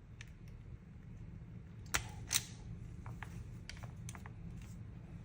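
Light clicks and taps of small plastic parts being handled, with two sharper clicks about two seconds in.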